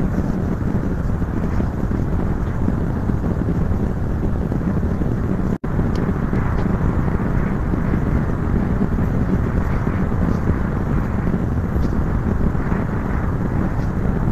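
Steady rumbling background noise, cut off for an instant about five and a half seconds in.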